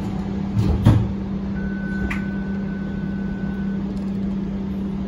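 Interior running noise of a moving TTC streetcar: a steady hum, with two knocks just under a second in. In the middle a single steady beep sounds for about two seconds.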